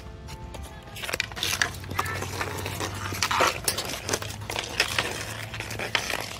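An irregular clatter of sharp clacks and knocks over a low steady hum, starting about a second in.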